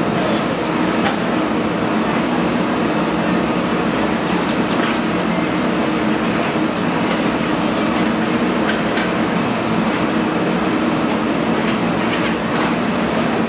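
Diesel engine of a JCB earthmoving machine running steadily at working speed, with a few faint clanks.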